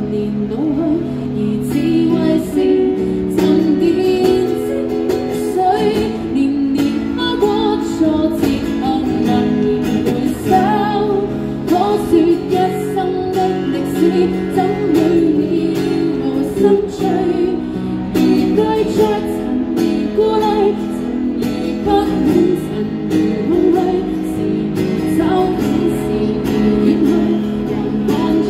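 A woman singing a pop song into a microphone, accompanying herself on a strummed acoustic guitar.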